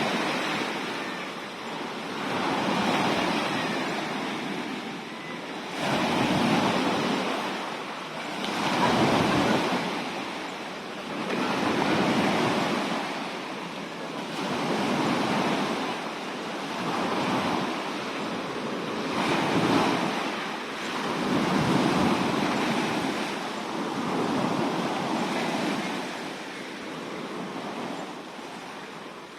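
Sea waves washing in, the surf swelling and fading about every two to three seconds.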